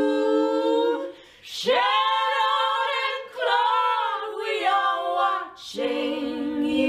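A cappella singing: several female voices in close harmony hold a chord that breaks off about a second in, then sing a few phrases separated by short pauses.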